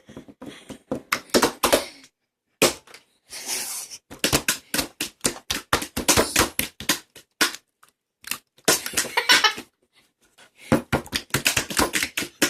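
Slime being poked and squeezed by hand, giving irregular runs of quick clicks with a couple of short pauses.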